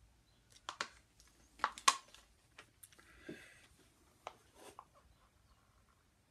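Small plastic mixing cups being handled and set down on a plastic-sheeted table: a scatter of light clicks and knocks, the loudest about two seconds in, with a short rustle of plastic around the middle.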